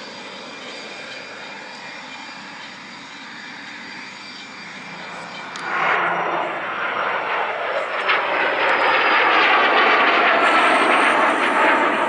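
The Cessna Citation CJ3's twin Williams FJ44-3A turbofans, first a steady, moderate jet whine with the aircraft on the ground. About six seconds in it jumps suddenly to the loud roar of the jet at takeoff power climbing out, with a high whine slowly falling in pitch.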